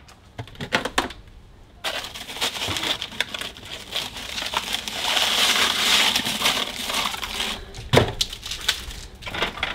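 Packaging of frozen meat pies being handled, crinkling and rustling from about two seconds in, busiest around the middle, with a single sharp knock near the end.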